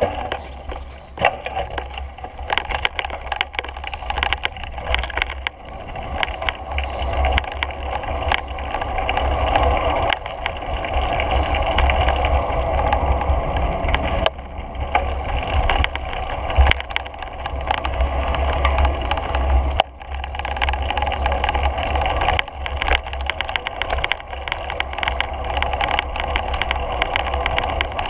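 Wind buffeting the microphone of a moving action camera, a heavy low rumble, over a steady whir of travel with frequent small rattles and clicks.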